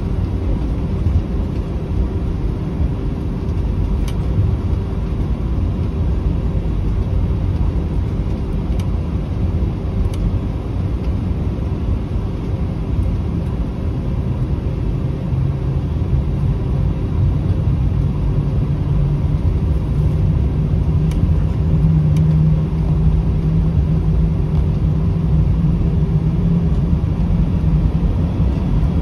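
Cabin noise of an Airbus A320 taxiing: the steady rumble of its IAE V2527-A5 turbofan engines at taxi power, heard inside the passenger cabin. A low hum in it grows louder from about halfway through.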